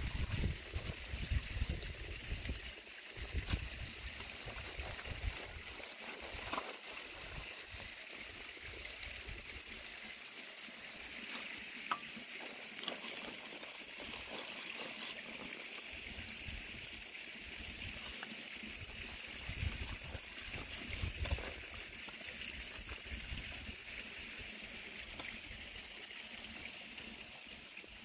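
Dry earth being sifted through a round hand sieve, grains pattering down onto a plastic sheet in a steady trickling hiss. Irregular low thumps sound in the first few seconds and again around twenty seconds in.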